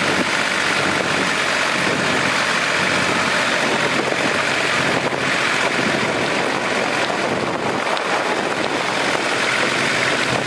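Tractor diesel engines running steadily under load as a tractor on cage wheels, stuck in deep paddy-field mud, is towed by a second tractor.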